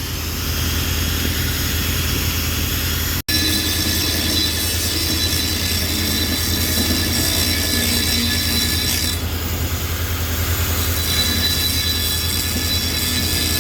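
Angle grinder with a grinding disc cutting through a metal air-vent pipe: a steady, loud high whine and screech of the disc on the metal, over a constant low hum. The sound breaks off for an instant about three seconds in.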